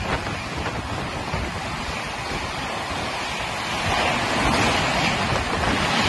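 Coaches of the 12023 Howrah–Patna Jan Shatabdi Express passing close by at speed: a steady rush of air and wheel noise, growing louder about four seconds in.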